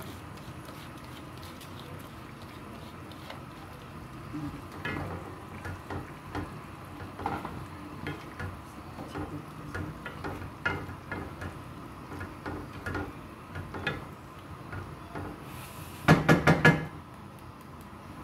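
A wooden-handled spatula stirring and scraping in a pot of curry and rice, with irregular light knocks against the pan. About sixteen seconds in comes a quick run of several loud knocks on the pot.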